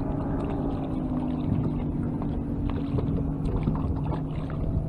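Electric trolling motor humming steadily as it holds the boat on spot-lock, over wind rumble on the microphone. Scattered small splashes from a hooked crappie being reeled to the boat.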